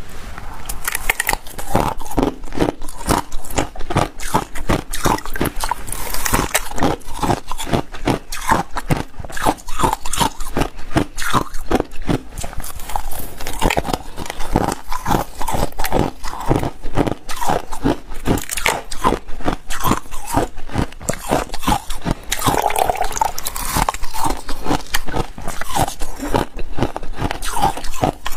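Frozen shaved ice packed in a plastic bottle being bitten and chewed close to a clip-on microphone: dense, brittle crunching, several crunches a second.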